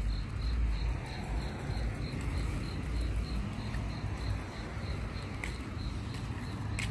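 A cricket chirping steadily at about three chirps a second, over a low rumble.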